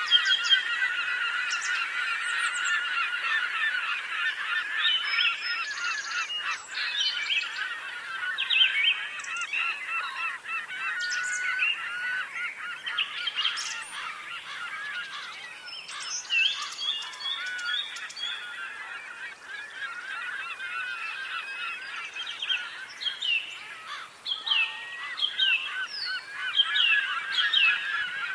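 A dense chorus of many birds calling at once, a continuous chatter of short overlapping calls, with a few clearer downward-sliding calls standing out near the end.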